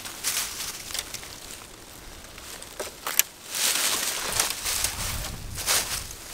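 Dry fallen leaves rustling and crunching in irregular bursts, with one sharp crack about three seconds in.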